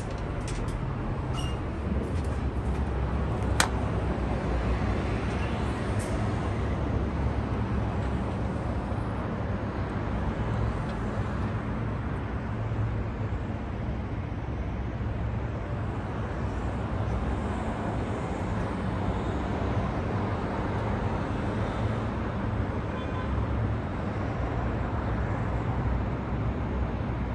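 Sandstorm wind rushing steadily, with a deep rumble in the low end. A single sharp click comes about three and a half seconds in.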